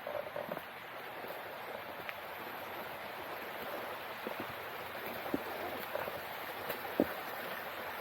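Steady rushing of running water, with a few short faint clicks scattered through.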